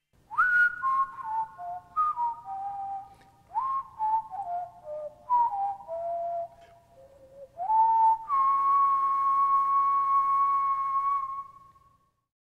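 A person whistling a short tune: three falling phrases, each opening with a quick upward slide into the first note. It ends on one long held note that fades out near the end.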